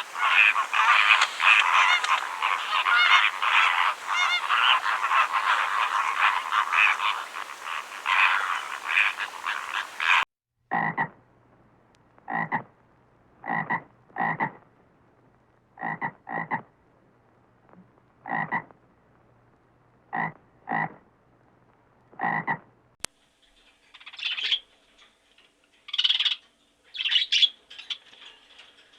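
Frogs calling: a dense chorus of overlapping calls for about ten seconds, then it cuts to single short croaks, often in pairs, every second or two. In the last few seconds there are short high chirps.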